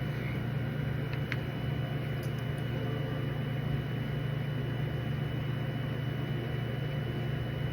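Steady low hum over a noise floor, with a few faint clicks.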